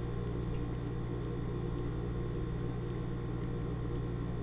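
Steady low hum of room background noise, with no eating sounds or speech.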